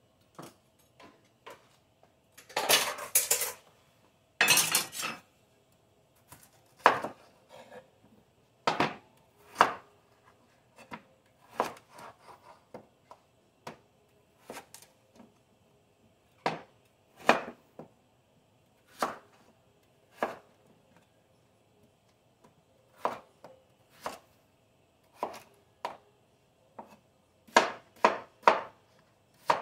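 Chef's knife cutting chayote on a wooden cutting board: single sharp knocks of the blade on the board at irregular intervals, roughly a second apart, coming quicker near the end. A couple of longer clattering bursts near the start, as a utensil is handled on the board.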